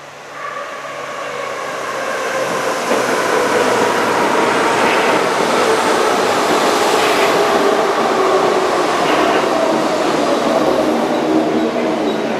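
Hamburg U-Bahn train running into an underground station and braking: a steady rumble that builds over the first few seconds, with a whine that slowly falls in pitch as the train slows.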